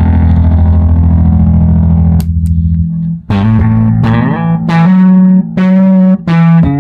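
Plucked electric strings played through the Basszilla distortion effects pedal. A heavily distorted held note rings and fades out over the first three seconds, with two clicks just before it stops. Then five separate picked notes follow, each starting sharply.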